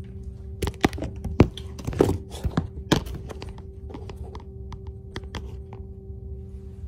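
Handling noise: a quick cluster of knocks, clicks and scrapes in the first three seconds, then a few scattered light taps, as the camera and clothing are moved about. A steady low hum runs underneath.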